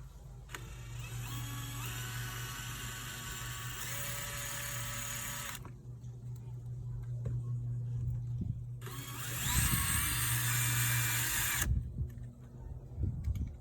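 Power drill running twice, about five seconds and then about three, speeding up at the start of the first run, as it backs out the screws holding the old doorbell.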